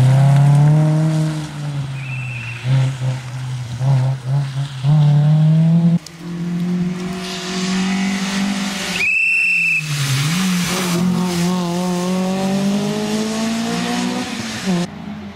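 Honda Civic rally car's four-cylinder engine revving hard, climbing and dropping through gear changes as it accelerates along the stage. A brief high tyre squeal comes about nine seconds in.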